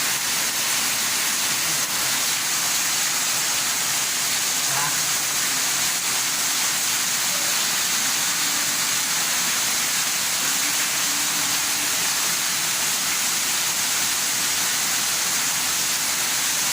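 Heavy rain pouring down, a dense steady hiss.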